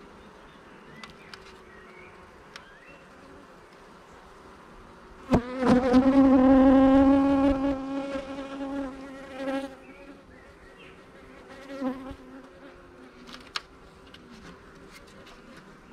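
Honeybee flying close past the microphone: a loud, steady buzz that comes in suddenly about five seconds in and fades away over the next four seconds, with a shorter, quieter pass a couple of seconds later.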